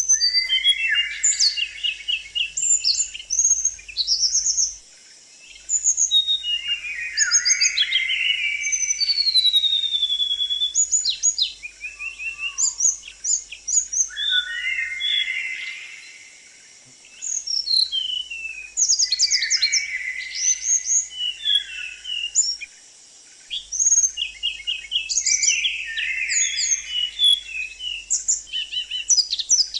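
Small songbird singing: fast, varied phrases of chirps, trills and whistled glides, with short pauses between phrases.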